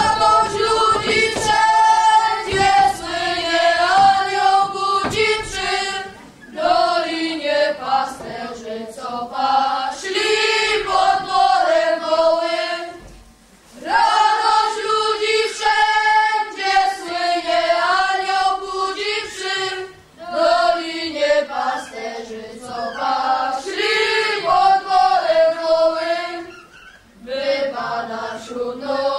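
A group of children singing a Polish Christmas carol (kolęda) together in unison. The melody comes in phrases of about seven seconds, with short breaks for breath between them.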